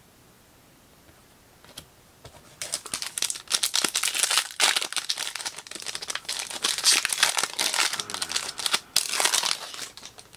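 Foil trading-card pack wrapper crinkling as it is handled and torn open, a dense crackle that starts about two and a half seconds in and runs for about seven seconds.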